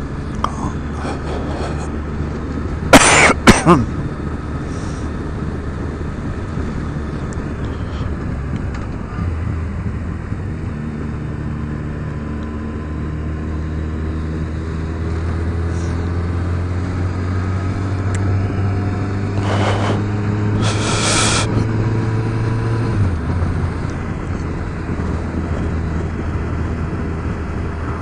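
Yamaha FJR1300's inline-four engine running under way, with steady road and wind noise at the helmet. The engine note climbs slowly as the bike accelerates and drops sharply about two-thirds of the way through, as at a gear change or closing the throttle. A loud short noise stands out about three seconds in.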